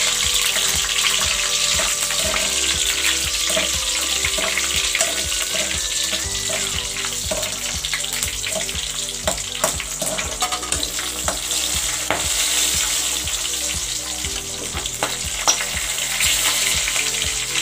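Dried red and green chillies with fenugreek seeds frying in hot groundnut oil in a metal kadai: a steady sizzling hiss full of small pops and spatters. A metal slotted spoon stirs and scrapes the pan now and then.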